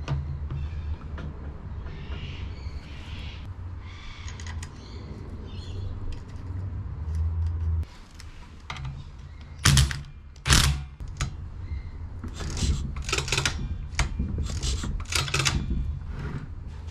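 Hand tools and metal parts clicking and knocking while a Honda Motocompo scooter engine is being reassembled, with two loud sharp knocks about ten seconds in and a run of clicks near the end, over a steady low hum.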